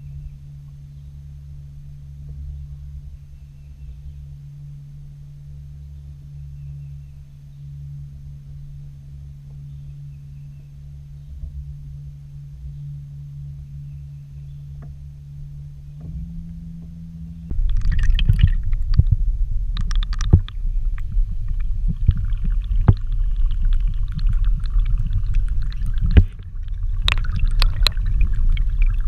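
A steady low hum for most of the first half. About two-thirds of the way in it gives way to the loud, low underwater rush of river water over a submerged camera, with frequent knocks and crackles against the housing.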